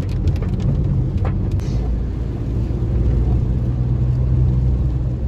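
Steady low rumble of a moving road vehicle, engine drone and road noise, with a few light clicks or rattles in the first couple of seconds.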